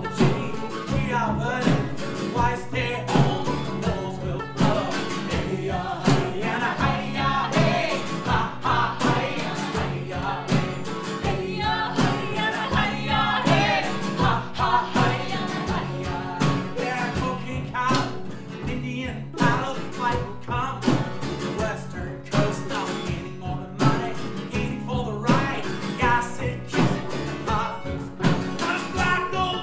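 Acoustic folk band playing: strummed acoustic guitars, banjo and upright bass over a steady drum beat, with several voices singing together.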